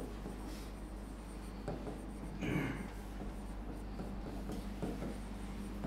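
Faint scratching of pen strokes writing on an interactive touchscreen board, short strokes one after another, with one louder stroke about halfway.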